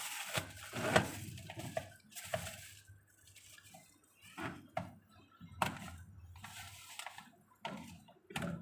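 Irregular clicks, knocks and rustles of containers and packets being handled while food is put away in a fridge.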